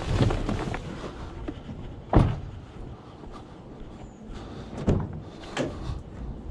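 A vehicle door shut with one sharp thud about two seconds in, followed by two softer knocks, over a low background rumble.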